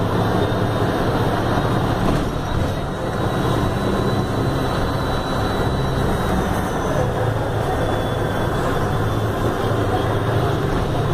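Mercedes-Benz OF-1519 city bus's front-mounted diesel engine running steadily as the bus drives along, heard from inside the cabin together with road noise.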